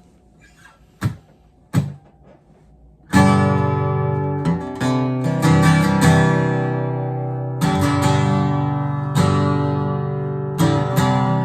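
Vintage Gibson SJ (Southern Jumbo) flat-top acoustic guitar strummed: full chords start about three seconds in, ring out and are restruck every second or so. Before the chords, two short knocks.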